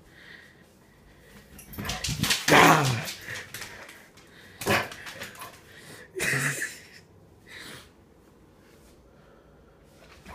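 A dog barking, three loud barks about two seconds apart.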